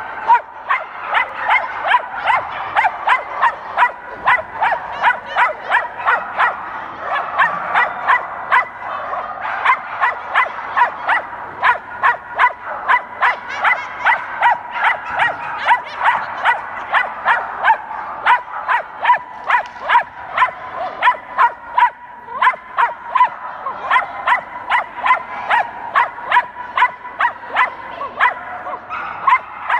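Small dog barking nonstop as it runs an agility course, about three barks a second.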